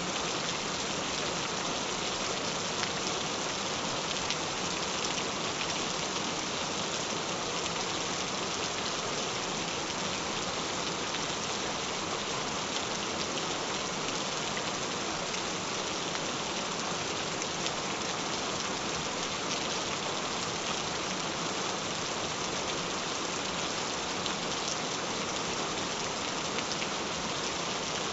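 Gentle rain falling steadily, an even patter of many drops.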